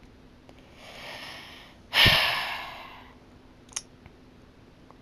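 A person breathes in, then lets out a loud sigh about two seconds in, the breath blowing on the microphone. A small click follows just under four seconds in.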